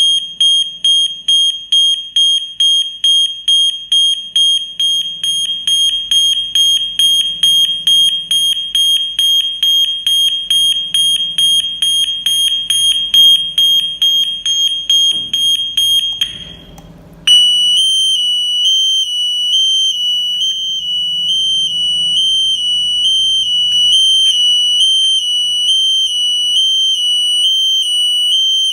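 MUCCO SNT-B712 electronic horn siren sounding loudly: a high single-pitch beep repeated about three times a second. After a brief break about 16 s in, it changes to a two-tone melody alternating between two close high pitches.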